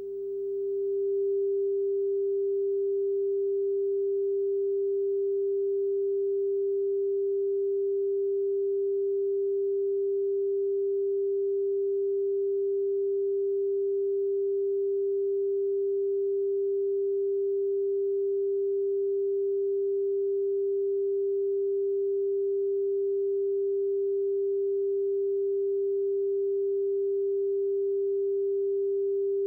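Broadcast test tone: a single steady sine-wave pitch sounding with the colour bars after a TV station's sign-off, the sign that the station is off the air. It fades up over about the first second, then holds at one level and pitch without change.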